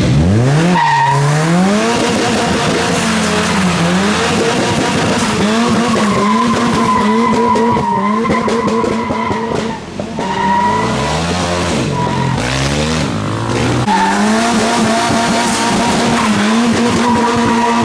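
A Ford Sierra's engine revving hard in a burnout, its tyres spinning and squealing. The revs are held high for long spells, then drop and climb again several times.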